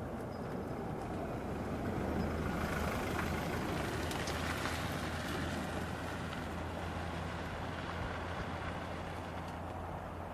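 Distant train approaching: a steady low rumble with a louder rushing swell a few seconds in.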